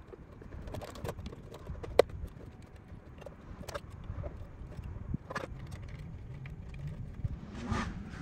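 Hard plastic parts of a Perfect Grade Unicorn Gundam Perfectibility display base being handled and fitted together: scattered clicks and knocks, with one sharp snap about two seconds in, over soft handling noise.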